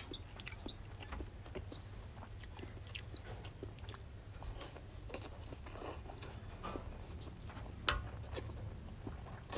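Close-up eating sounds of a person eating fried rice noodles: chewing with many small wet mouth clicks, and drawing strands of noodles into the mouth.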